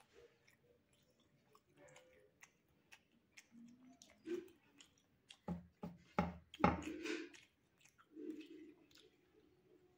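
Close-miked chewing and wet mouth sounds of a man eating rice, dal and boiled egg with his hand: soft clicks and squishes, with a run of louder smacks a little past the middle.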